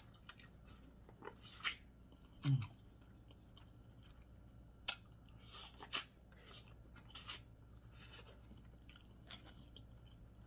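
A person eating seafood close to the microphone: quiet chewing with scattered short sharp clicks and cracks. About two and a half seconds in comes the loudest sound, a brief low vocal sound falling in pitch.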